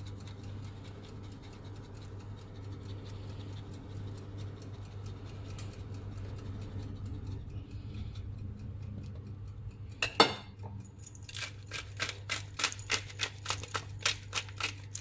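Extra cheese being added to a pizza by hand: faint quick scraping and ticking over a steady low hum, then from about ten seconds in a run of sharp clicks, about three a second.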